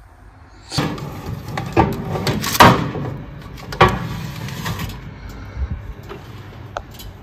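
Oven door opened and a metal baking tray slid into the hot oven, with several knocks and clatters, the loudest about two and a half seconds in, then a few lighter clicks.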